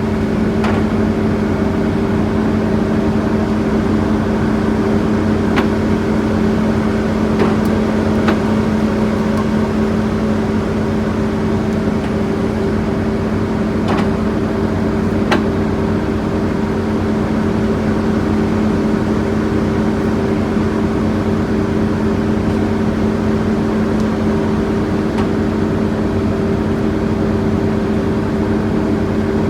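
Bulldozer's diesel engine running with a steady, unchanging drone, with a few short sharp knocks now and then.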